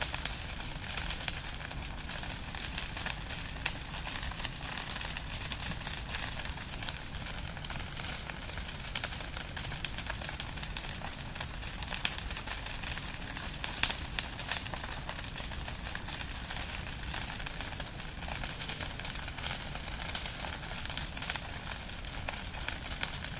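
Firewood burning: a steady hiss of flames with frequent small crackles and pops, one louder pop about midway.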